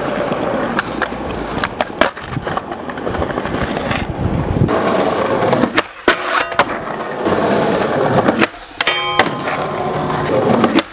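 Skateboard wheels rolling on concrete, broken by several sharp pops and landing knocks. A steel handrail rings after the board strikes it.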